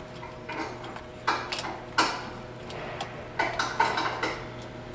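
Irregular metal clicks and scrapes of a 5 mm Allen key working the bolts that hold a tinting-machine pump in place, loosening them.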